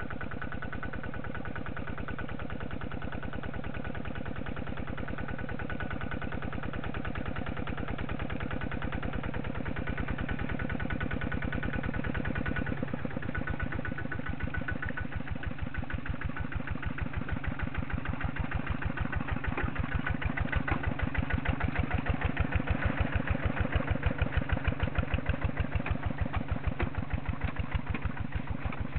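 Kubota walking tractor's single-cylinder diesel engine running with an even beat, working through the mud of a flooded rice field. It grows louder as the machine comes up close in the second half.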